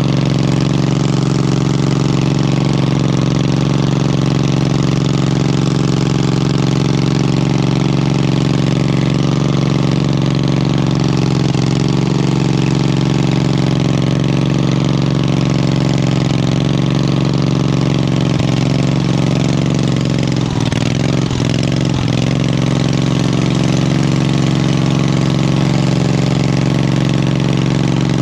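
Wheel Horse garden tractor's engine running at a steady speed, with a couple of brief dips in speed about two-thirds of the way through.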